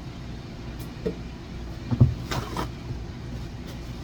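A few short knocks and clatters over a low steady hum, the loudest about two seconds in.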